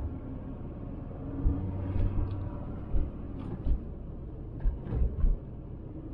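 Inside the cab of a moving VW T4 Transporter van: a steady engine and road rumble, with irregular low thumps as the van goes over bumps.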